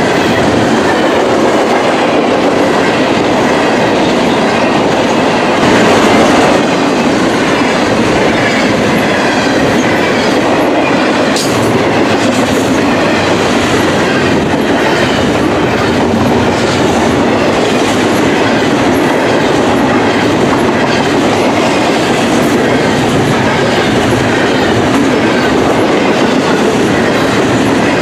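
Double-stack intermodal container train's well cars rolling past at close range: a loud, steady rumble of steel wheels on rail with repeated wheel clicks.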